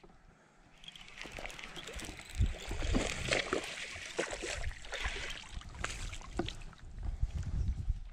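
A hooked largemouth bass splashing in shallow water at the shoreline as it is reeled in on a baitcasting reel, beginning about two seconds in, with scattered clicks and a few low thumps.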